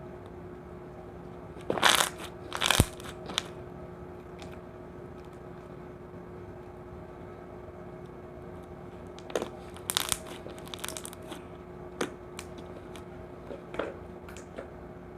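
Slime being squeezed and pressed by hand, giving short crackling, clicking pops in small clusters: loudest about two seconds in and again around ten seconds, with a few single pops after.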